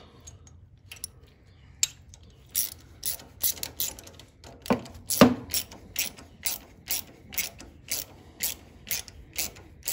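Socket ratchet clicking in a steady run of short strokes, about two to three clicks a second, after a few scattered clicks at first. It is driving a new Loctite-coated rocker arm bolt into a Briggs & Stratton V-twin cylinder head.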